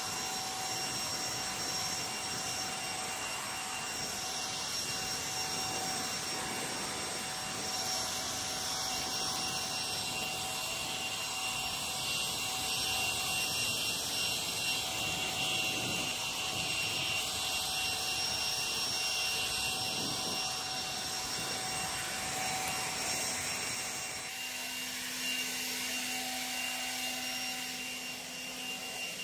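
Dewalt 60V Flexvolt brushless handheld leaf blower running: a steady rush of air with a thin electric whine. About 24 seconds in the sound changes, the high hiss easing and a lower hum coming in.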